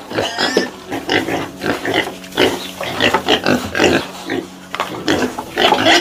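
A group of piglets grunting: many short, overlapping grunts in quick, irregular succession.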